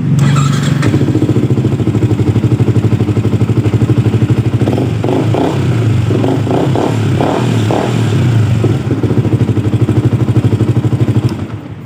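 Yamaha R15 V2's single-cylinder engine idling with an even pulse, starting readily on its new rectifier regulator, then stopping shortly before the end.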